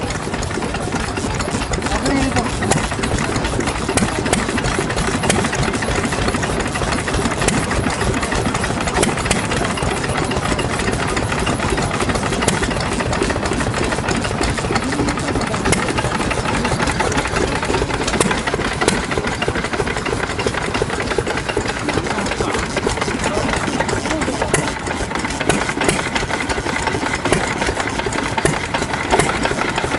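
Old Yanmar single-cylinder diesel stationary engine with a spoked flywheel, running steadily.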